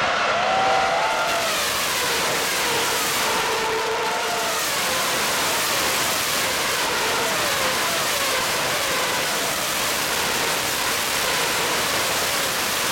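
2013 Formula 1 cars, naturally aspirated 2.4-litre V8s at high revs, passing one after another on the straight; each engine note falls in pitch as its car goes by.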